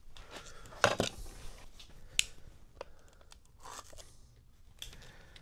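Plastic wrapping on a small box of faucet washers being torn and crinkled open: scattered crackles and rustles, with a louder rustle about a second in and a sharp click just after two seconds.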